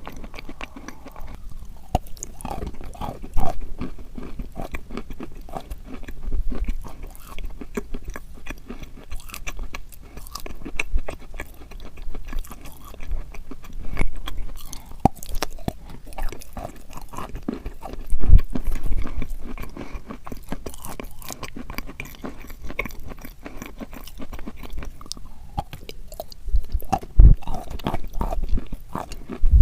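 A person biting and chewing crunchy chalk close to the microphone: dense crisp crackling crunches throughout, with heavier bites about two-thirds of the way in and again near the end.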